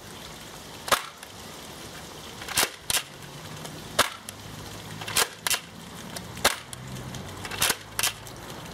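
X-Shot Insanity Berzerko foam dart blaster being primed and fired in turn: a series of sharp plastic snaps, nine in all, several coming in close pairs.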